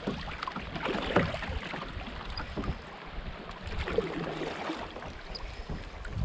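Water splashing and lapping around a kayak on a creek, with sharper splashes about a second and about four seconds in, over a low wind rumble on the microphone.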